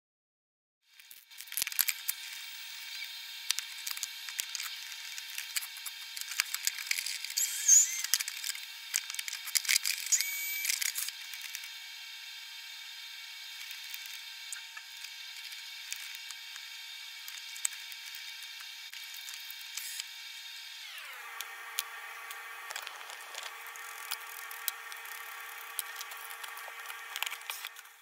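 Sliced onions frying in a pan, stirred and scraped with a wooden spatula: a sizzle with frequent scraping clicks, busiest in the first ten seconds. Under it runs a steady whine of several tones that drops to a lower pitch about twenty seconds in.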